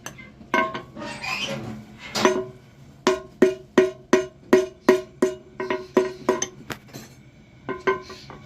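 A small hammer striking a metal part, each blow ringing with a clear metallic tone. A few scattered blows are followed, from about three seconds in, by a steady run of about a dozen blows at three to four a second, then a few more near the end.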